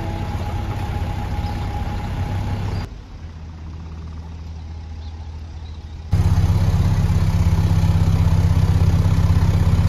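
Narrowboat diesel engines running with a steady low throb. It drops quieter about three seconds in and is loudest from about six seconds in, close to the engine as the boat moves into a lock chamber.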